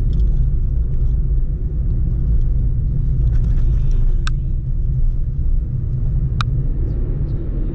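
Steady low rumble of a car's engine and tyres heard from inside the cabin while driving on a road, with two short sharp clicks a couple of seconds apart.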